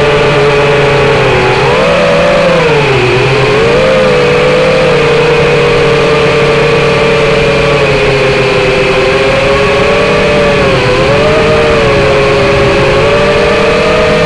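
Wizard X220 racing quadcopter's brushless motors and propellers whining loudly in flight, heard through the onboard camera. Several close pitches rise and fall together with the throttle, dipping about three seconds in, over a steady hiss of prop wash.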